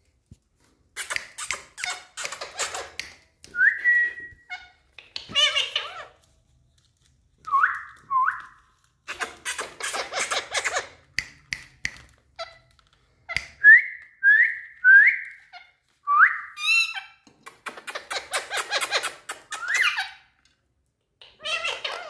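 Indian ringneck parakeets calling: a string of short rising whistles with bursts of harsh, raspy chatter in between.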